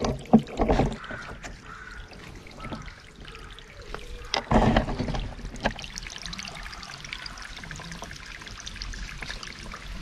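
Water spilling over stacked stones into a small garden pond, a steady splashing trickle. Low thumps come about half a second in and again near the middle.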